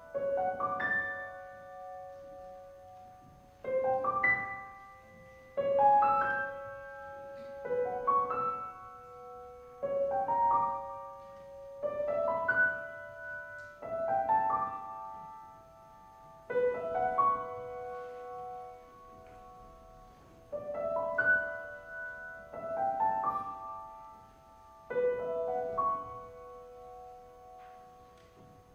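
Steinway grand piano played solo: short groups of notes struck about every two seconds, each left to ring and fade before the next.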